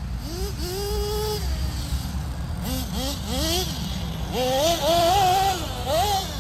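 Thunder Tiger EB4 RC buggy's small nitro engine revving up and down again and again as the buggy is driven hard, loudest a little past the middle.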